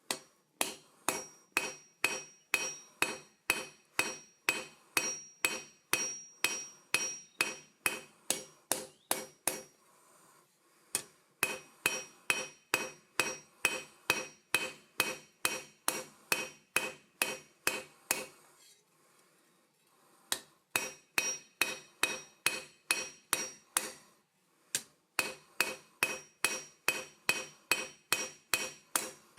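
Hammer blows on an anvil while forging steel: steady strikes about three a second, each with a ringing note, in four runs broken by short pauses.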